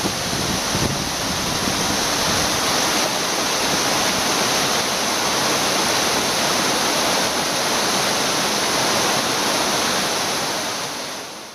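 Waterfall pouring over rock ledges into a shallow stream: a steady, loud rush of falling water that fades out near the end.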